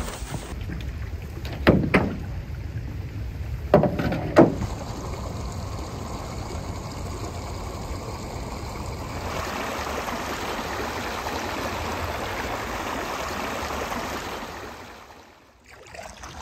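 Canoe being paddled on calm water: a steady wash of water around the hull and paddle, growing fuller about nine seconds in and fading out near the end. A few sharp knocks come in the first few seconds, the loudest sounds.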